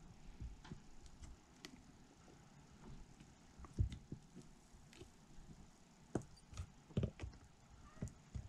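Faint, scattered light taps and clicks from a soldering iron and 18650 lithium-ion cells being handled during soldering, with a few sharper knocks about four, six, seven and eight seconds in.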